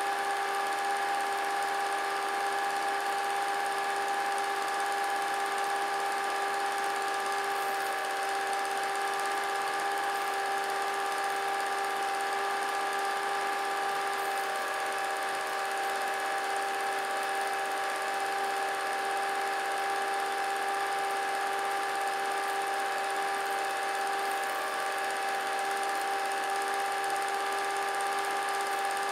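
Vintage film projector running: a steady motor whir with a constant whine.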